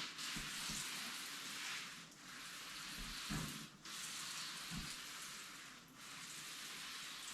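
Pump-up hand sprayer misting water onto a popcorn ceiling, a steady hiss in runs of about two seconds with brief breaks between, and a few soft low knocks.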